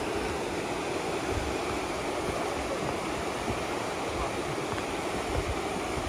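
Steady rush of a fast-flowing river running over rocky rapids.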